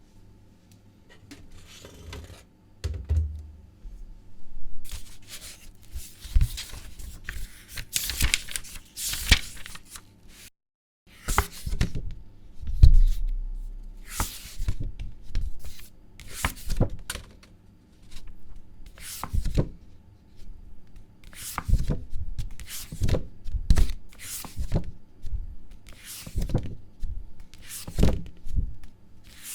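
Paper pages being turned by hand: a stretch of continuous rustling, then a run of short swishing flips about every second or so, with a low thump now and then.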